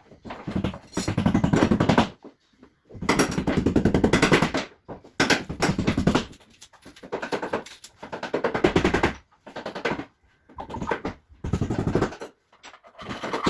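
A power tool on woodwork, run in about eight short bursts of rapid rattling with brief pauses between them.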